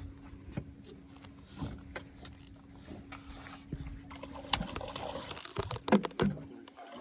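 Scattered knocks, clicks and rattles of handling in a fishing boat, busiest and loudest in the second half, as a big crappie is netted and brought aboard. A faint steady hum runs underneath.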